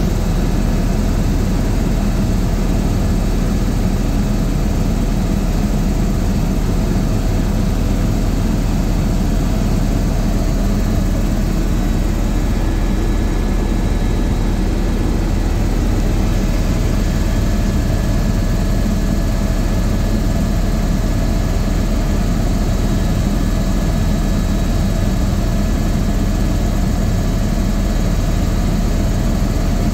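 Helicopter cabin noise in flight: the steady, loud drone of the engine and rotor, with a few faint steady whining tones over it.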